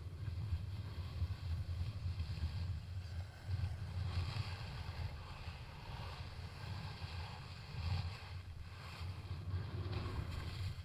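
Wind buffeting the action camera's microphone as a snowboard rides downhill, with the board scraping across packed snow; the scrape swells about four seconds in and again near eight seconds, as on turns.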